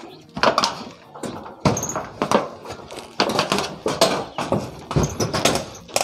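Irregular knocks, bumps and rustles of a worker handling the coaxial cable and moving about beside a satellite dish, while he gets ready to unscrew the test cable from the LNB.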